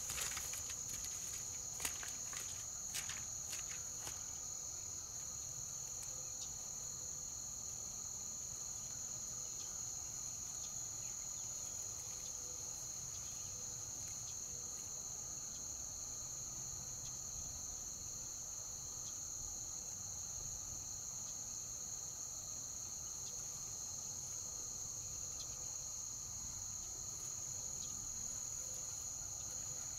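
Steady insect chorus of crickets, a continuous high-pitched trilling, with a few light clicks in the first few seconds.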